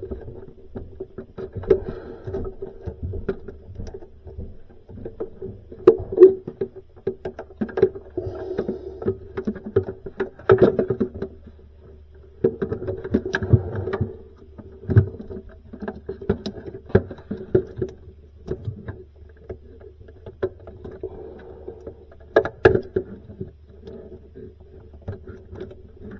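Irregular clicks, taps and knocks of hands working wire connectors and parts inside a refrigerator, over a steady low hum.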